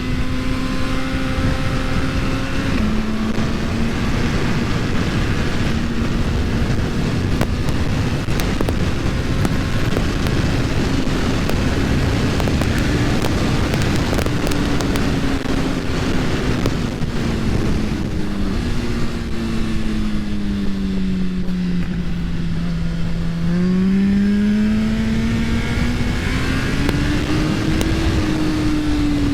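2022 Suzuki Hayabusa's inline-four engine pulling hard at speed under a heavy rush of wind noise. About two-thirds through, the engine note falls as the throttle is rolled off, then climbs again under acceleration and eases near the end.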